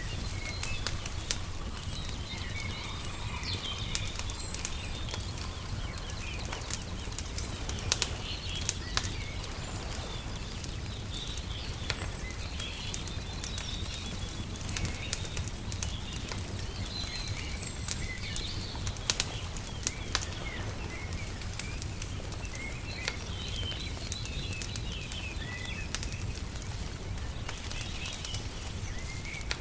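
Wood fire crackling, with frequent sharp pops over a steady low rumble. Small birds chirp on and off throughout.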